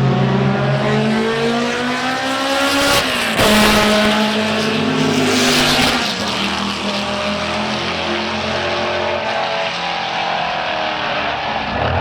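Racing car engine running hard on track, its pitch climbing under acceleration, with a sudden change about three seconds in and another about six seconds in, as at gear changes or a second car coming through.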